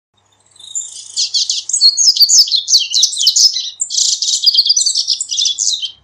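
Double-collared seedeater (corbatita) singing one long song phrase, a fast run of high notes, starting about half a second in and stopping just before the end.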